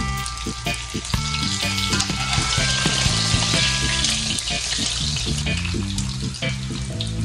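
Hot cooking oil sizzling and crackling steadily as fish fry, with background music playing over it.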